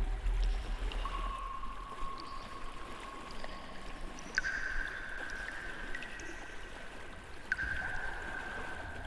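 Ambient soundtrack: a long held high tone that steps up in pitch about four seconds in, over a steady water-like hiss.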